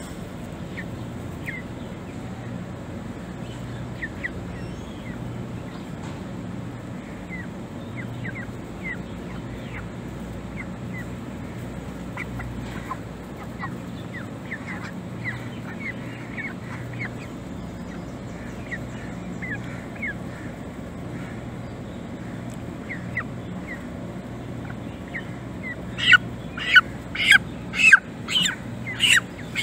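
Birds calling: short faint chirps scattered throughout over a steady low hum, then a run of about seven loud repeated calls, roughly two a second, near the end.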